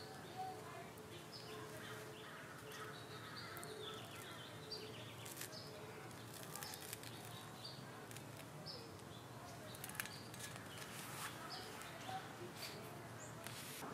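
Faint outdoor ambience: small birds chirping in short high notes now and then, over a steady background hiss.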